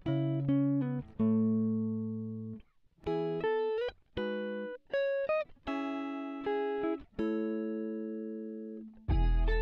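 Background music: a guitar playing slow single notes and chords, each ringing out and fading, with a few bent notes in the middle. About nine seconds in, a deeper, louder part comes in.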